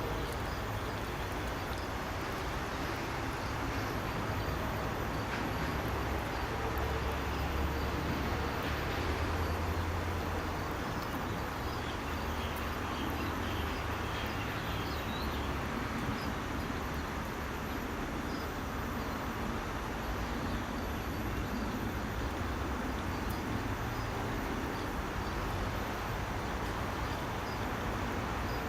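Steady low rumble and hiss of background noise, with no distinct sudden sounds standing out.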